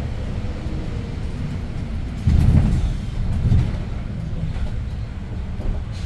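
The Hyundai New Super Aero City bus's C6AF CNG engine running, heard from inside the cabin. It gets suddenly louder about two seconds in, with a shorter louder moment about a second later.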